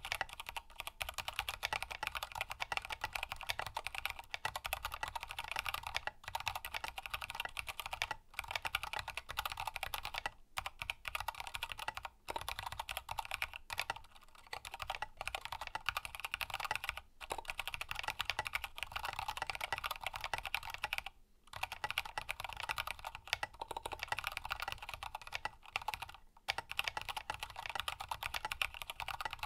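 Continuous typing on a close-miked Grid 600 mechanical keyboard with lubed Kailh Box Black linear switches in a carbon fiber plate and Signature Plastics SA Pulse keycaps: a dense stream of keystroke clacks, broken by short pauses every few seconds.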